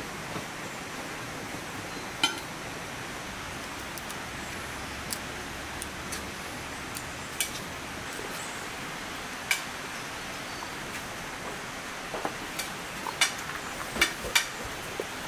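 Steady hiss of rain falling, with scattered sharp ticks and taps at irregular intervals, clustered most thickly near the end.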